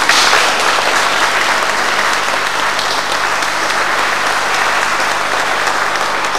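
Audience applauding, closing a minute of silence.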